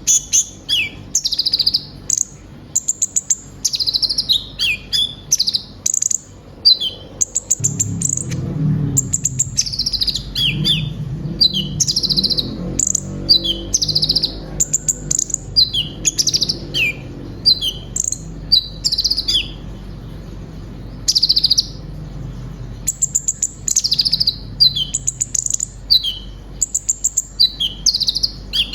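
Kolibri ninja (konin) sunbird singing a fast, varied song of high chirps, trills and rapid stuttering runs, packed with phrases copied from other birds. A low hum sits underneath through the middle stretch.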